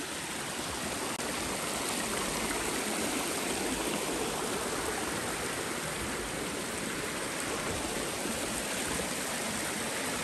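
Stream of water rushing steadily, a constant even hiss with no breaks.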